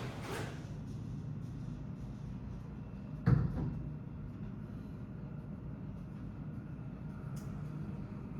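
Steady low hum of an airport lounge's background, with a single dull thump about three seconds in.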